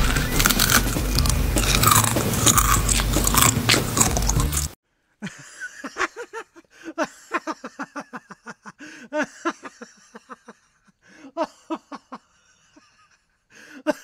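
A person biting and chewing something crunchy close to the microphone, with background music, cutting off abruptly about five seconds in. Then a sparse run of short, quick pitched notes.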